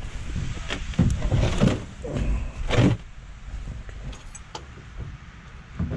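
A hydraulic jack under a truck axle being let down and handled, giving several knocks and scrapes in the first three seconds, then a few faint clicks and one more knock near the end.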